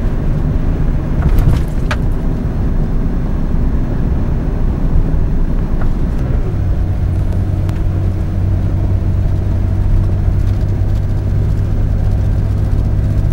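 Engine and road noise inside a moving car's cabin: a steady low rumble, with a couple of brief clicks about a second and a half in. A steady engine hum settles in about halfway through and holds.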